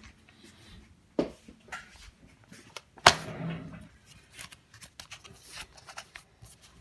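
Handling noise of objects being moved on a worktable: scattered light clicks and rustling, a knock about a second in, and a sharp, louder knock about three seconds in with a brief ringing after it.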